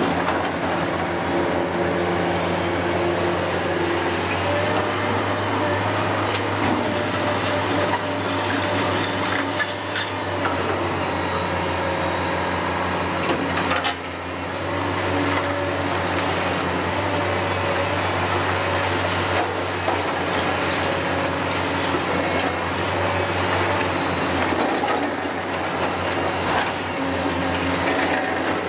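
Hitachi Zaxis 470 excavator's Isuzu diesel engine running under load, its pitch shifting as the hydraulics swing the boom and work the demolition grab. A few sharp knocks from rubble being handled come through, most clearly around a third and halfway in.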